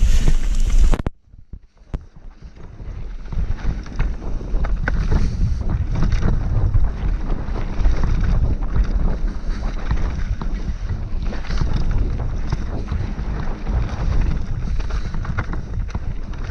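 Mountain bike descending a rough dirt and rock trail at speed: wind buffeting the camera microphone over tyre noise, with frequent knocks and rattles from the bike. The sound dips almost to nothing about a second in, then builds back up.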